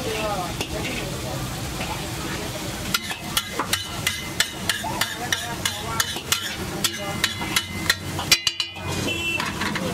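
Egg gravy sizzling on a flat street-vendor griddle. From about three seconds in, a metal spatula clacks against the griddle roughly three times a second as the gravy is chopped and stirred.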